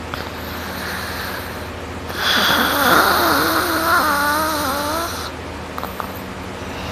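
A person snoring heavily while asleep on their back: a soft in-breath, then one long, loud snore beginning about two seconds in and lasting some three seconds, with a wavering pitched tone in its second half.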